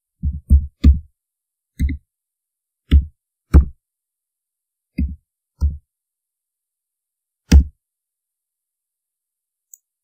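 Keystrokes on a computer keyboard while typing: about nine dull, thudding taps, spaced irregularly, each with a faint click on top.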